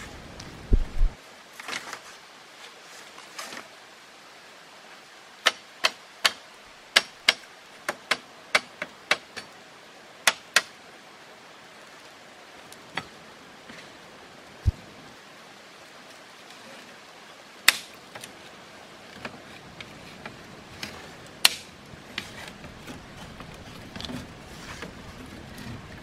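Bamboo strips clacking and tapping against upright bamboo stakes as they are woven into a round frame: sharp clicks, a quick run of about a dozen in the middle, then a few single ones.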